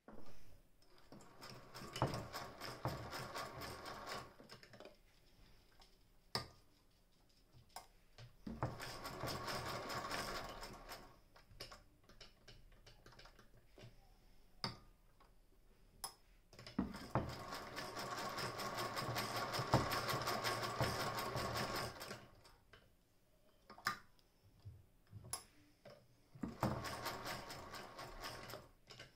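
Singer 201K hand-crank sewing machine stitching through cloth in four runs of a few seconds each: a rapid, even chatter of needle and mechanism while the handle turns. Separate clicks and knocks come in the pauses between runs.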